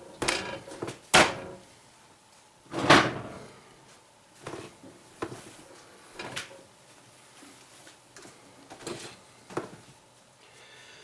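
A run of separate knocks and clunks from things being handled on a kitchen counter as a whole raw chicken is set down on a plastic cutting board and a plate is shifted. The loudest thump comes about three seconds in.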